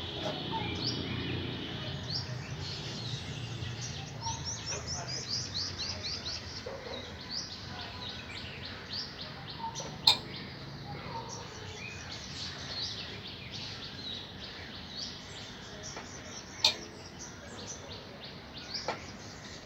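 Wild birds singing: many rapid, short downward-sweeping chirps, thickest in the first half. Two sharp clicks, one about halfway through and one about three-quarters through.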